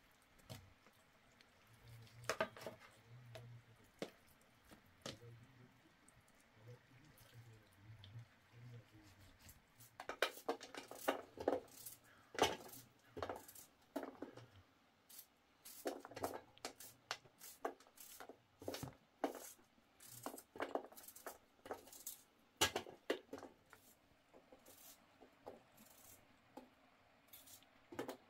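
Irregular light clicks and knocks, sparse at first and coming thick and fast from about ten seconds in.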